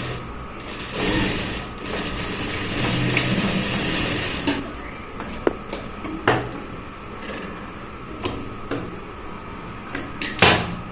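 Cotton shirt fabric rustling as a cuff is handled and turned by hand, followed by a series of separate sharp clicks and taps, the loudest near the end.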